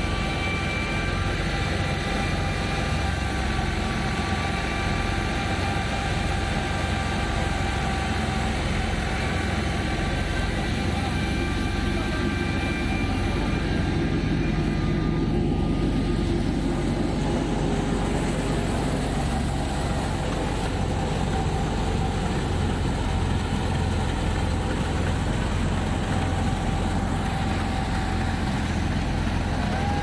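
A tractor-driven wheat thresher running steadily under a Fiat 480 tractor: a constant mechanical drone with a steady high whine over it, the whine weakening about halfway through.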